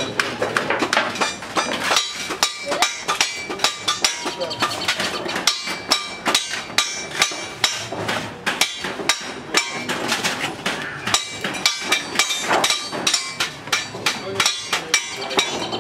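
Sheet metal being worked: sharp metallic knocks, about two to three a second, each followed by a brief ringing.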